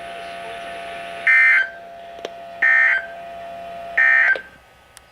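NOAA Weather Radio's EAS end-of-message signal: three short, identical bursts of warbling SAME digital data tones, about a second and a third apart, over the radio's faint steady hum. They mark the end of the Required Weekly Test.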